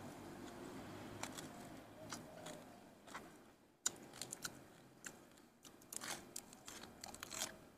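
A person chewing a mouthful of food with wet mouth clicks. From about four seconds in come many sharp crisp crunches and crackles as a fresh lettuce leaf is handled and bitten.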